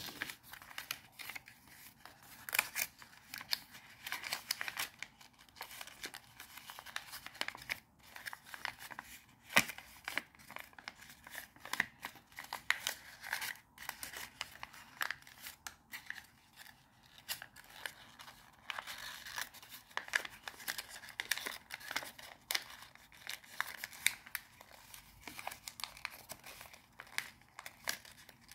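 Paper rustling and crinkling as hands fold and crease a sheet of origami paper. Irregular sharp crackles come as the folds are pressed down.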